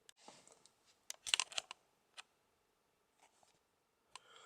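Small, quiet clicks and taps of a screwdriver on screws and of plastic transmitter parts being handled, with a quick cluster of clicks about a second in and single clicks later.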